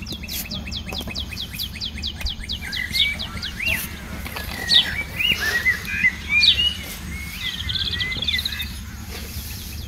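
A songbird singing: a fast run of repeated high, sharp notes that slows over the first few seconds, then a string of varied chirps and short whistles, over a steady low hum.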